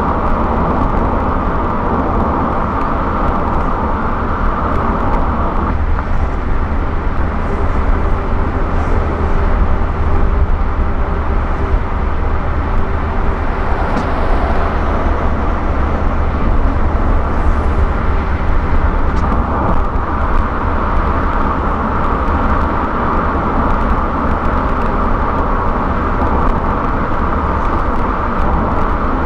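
Car travelling at highway speed: a steady rumble of tyres on the road surface and the engine, unbroken throughout.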